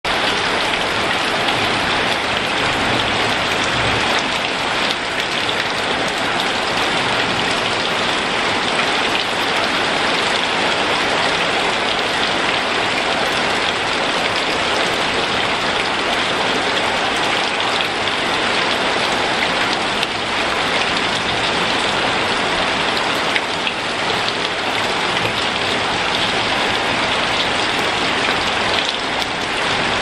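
Heavy rain falling steadily on leaves and trees: a dense, even hiss of drops that holds constant throughout.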